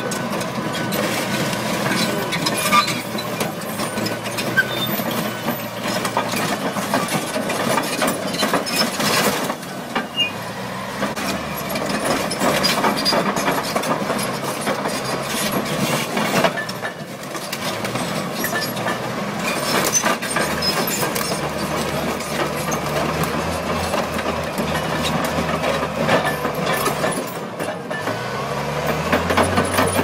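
Large Caterpillar crawler bulldozer's diesel engine working under load as its steel tracks climb onto and crush a car, with constant crunching, creaking and cracking of the car's body. The engine note rises near the end.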